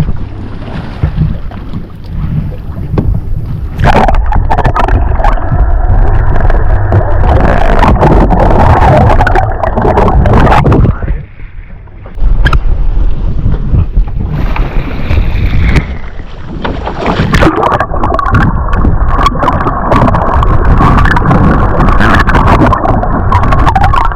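A boat running on the water, its engine rumble mixed with wind on the microphone and water noise, dipping briefly about eleven seconds in.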